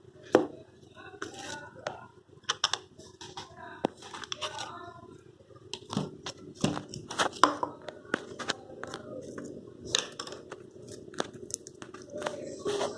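Slime being squeezed and pulled by hand, giving irregular sharp clicks and crackling pops, several of them loud.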